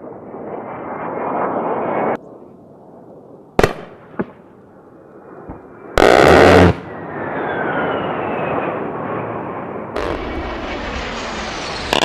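A string of explosions and bangs: a rushing roar that cuts off abruptly, two sharp cracks, a heavy blast about six seconds in followed by a long rushing rumble with a faint falling whistle, and another roar starting about ten seconds in.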